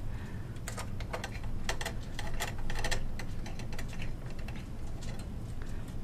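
Irregular light clicks of a screwdriver tightening down a CPU heat sink's screws in a workstation case, in small clusters of a few clicks each.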